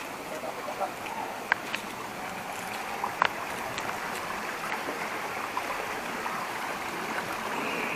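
Stream water running steadily over rocks, with a few light clicks about one and a half and three seconds in.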